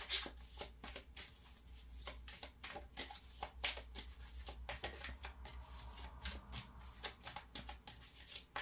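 A deck of tarot cards being shuffled by hand: a quick, uneven run of card clicks and rustles.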